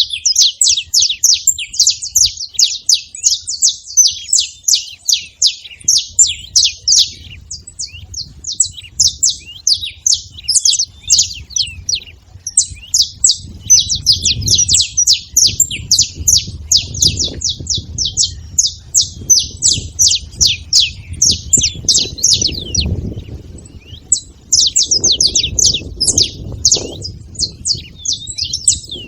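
Saffron finches chirping together in rapid, near-continuous runs of short, sharp high notes, broken by a few brief pauses.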